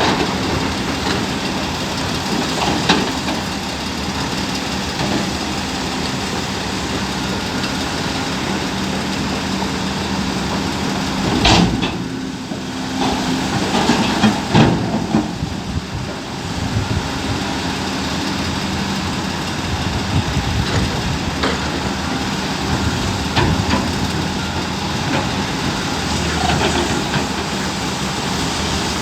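Heavy diesel engine of a large mining excavator running steadily at work, with a few loud bangs and knocks, the largest about 11 and 14 seconds in.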